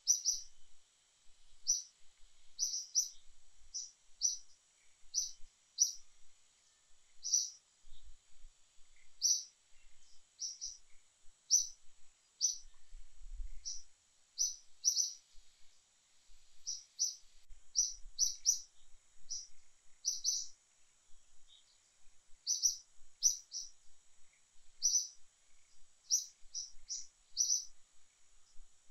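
A small bird chirping over and over, short high notes coming irregularly about once or twice a second, over a faint steady high hum.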